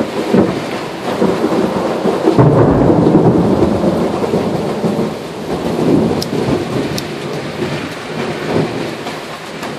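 Thunder rolling over steady rain. The rumble swells a couple of seconds in and again about six seconds in, then fades away toward the end.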